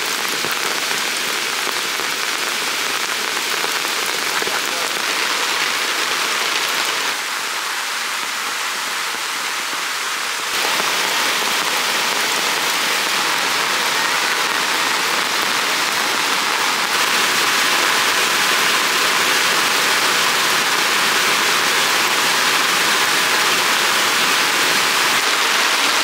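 Steady rain falling, an even hiss that jumps in level abruptly at about 7, 10 and 17 seconds in.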